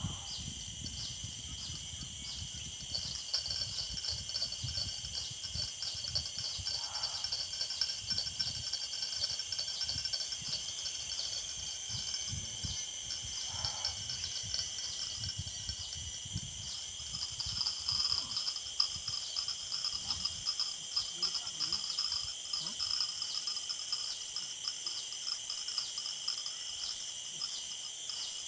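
Insect chorus, crickets among them: several steady, high-pitched trills layered together, with a low uneven rumble underneath in the first half.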